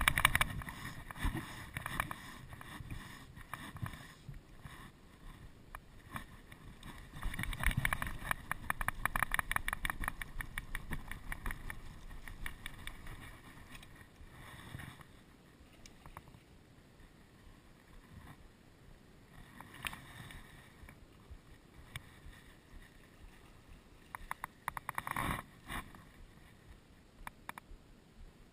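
Fly reel's click ratchet clicking rapidly in spells as line is wound in or pulled off while a hooked brown trout is played on a bent fly rod. The longest spell comes about a quarter of the way in, with a short one near the end.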